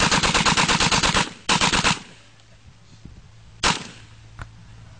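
MP40 9 mm submachine gun firing full-auto at roughly ten rounds a second: a burst that ends about a second in, then a second short burst half a second later. A single sharp report follows a little past the middle.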